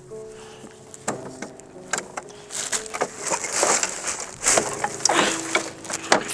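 Plastic tarp crackling and rustling as it is gathered and pulled, in loud ragged bursts from about two and a half seconds in, after a few scattered clicks and scuffs. Faint music plays underneath.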